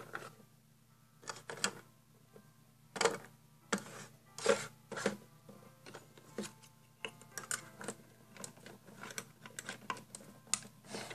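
Small plastic toy food pieces clinking against a little metal tin as they are dropped in and the tin is handled: light clicks and rattles at irregular intervals.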